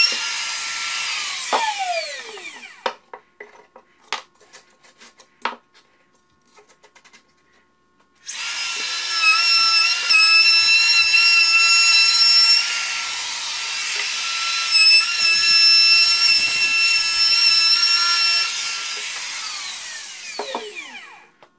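Compact electric router running with a high whine, then spinning down about two seconds in. A few sharp knocks of wood and tool being handled follow, and about eight seconds in the router starts again, running steadily and louder at times, until it spins down near the end.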